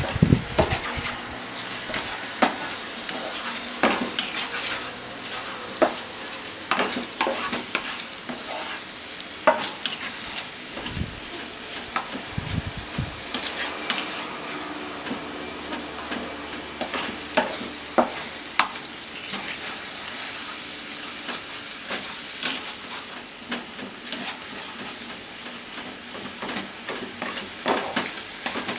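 Minced chicken sizzling in a frying pan while a spatula stirs and breaks it up, scraping and tapping against the pan in irregular clicks over a steady hiss.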